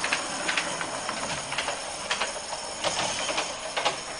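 Stuart Models Iver gas-fired live-steam garden railway locomotive running slowly with a load: a steady hiss with sharp clicks about twice a second.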